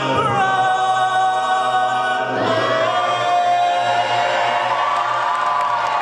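All-male a cappella group singing sustained closing chords, a low held bass note under them and a solo lead voice on top. The chord shifts about two seconds in, and the backing stops about five seconds in while the lead voice carries on.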